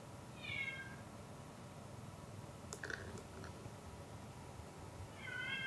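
Domestic cat answering its name with two small, soft meows, one about half a second in and one near the end, with a few faint clicks between them.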